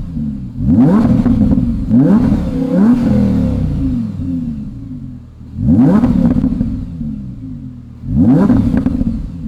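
Audi R8 V10 Performance's 5.2-litre V10 revved while stationary in five quick throttle blips, three close together in the first three seconds and two more a few seconds apart; each rises sharply and falls away slowly. The exhaust flaps are held fully open and the engine is mapped with the idle rev limiter removed and mild overrun crackles.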